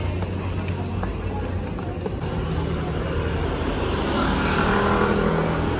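City street traffic with a steady low engine hum. A motor scooter passes close by near the end, its noise swelling as it goes past.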